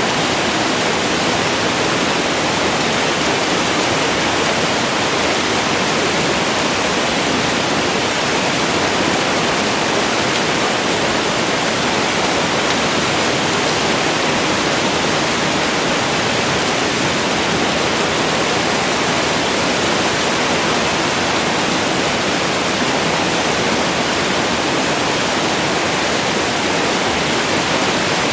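Waterfall: a steady, even rush of falling water that never changes in level.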